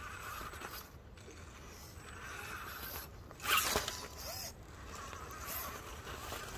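Axial Capra 4WS RC rock crawler's stock electric motor and gear drivetrain whirring in short spurts as it strains to climb a steep rock hill. A louder scraping rustle comes about three and a half seconds in.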